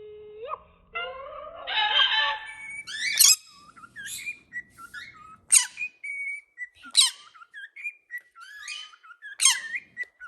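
Parrot whistling and calling: a whistled glide and a rising call, then a run of sharp, high screeching calls about every second or so, with short whistled notes in between.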